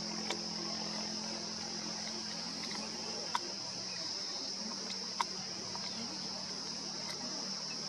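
Steady high-pitched insect chorus, like crickets, running without a break. Under it is a low hum, strongest in the first couple of seconds, and two sharp clicks come about a second and a half apart midway.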